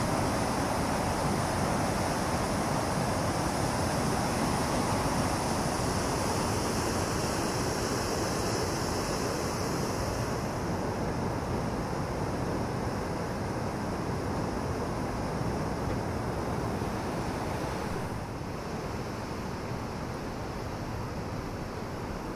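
White water rushing and churning below a River Thames weir in high flow, a steady noise that grows a little quieter in the second half and drops again near the end.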